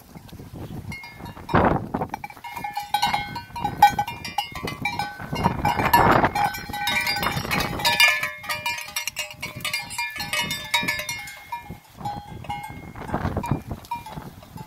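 A metal sheep bell (cencerro) clanking irregularly as sheep jostle while the ram mounts a ewe, with louder scuffling about two and six seconds in; the clanking stops about eleven seconds in.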